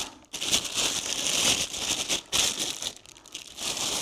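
Lens packaging crinkling and rustling as it is handled and unwrapped, in uneven spurts.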